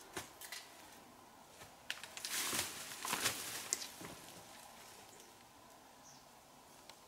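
Rustling and scuffing in leafy undergrowth, with scattered clicks and a louder stretch of rustling for about two seconds from about two seconds in.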